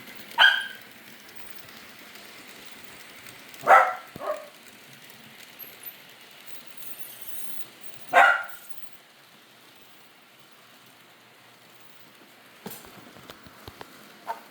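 A dog barking in short single barks: one about half a second in, a quick pair near four seconds, and another near eight seconds. Under the barks runs the faint steady whir of HO-scale model trains on the track.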